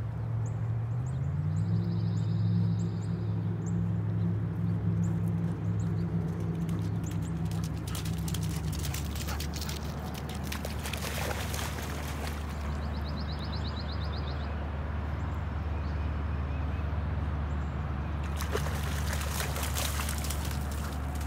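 Chocolate Labrador retriever splashing through shallow floodwater in two bouts, one about halfway through and another near the end, over a steady low hum. Faint bird trills come and go.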